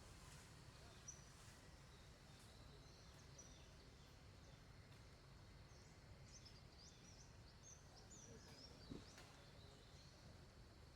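Faint outdoor ambience: small birds chirping in short, high calls over a low steady background hum, with a soft knock about a second in and another near nine seconds.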